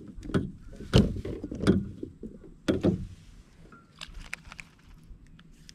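Several knocks and thumps of fishing gear handled against a plastic sit-on-top kayak in the first three seconds, followed by a few lighter clicks.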